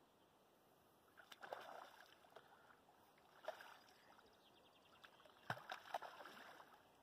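A hooked carp splashing at the water's surface close to the bank as it is played in, in several short bursts, the loudest near the end.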